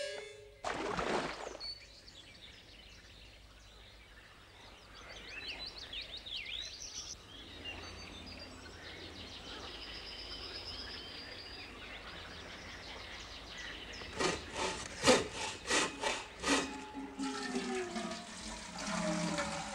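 Water poured from a metal bucket into a hole in the ground, a steady rushing splash. It is followed by a run of sharp knocks, the loudest part, about three-quarters of the way through.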